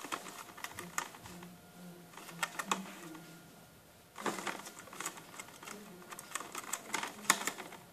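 A gerbil gnawing and scrabbling at a cardboard box: irregular dry clicks and crunches, bunched in a cluster about four seconds in and again near the end.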